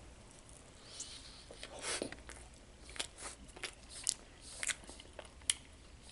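A man chewing a bite of frosted cotton candy donut: soft, irregular mouth clicks and smacks.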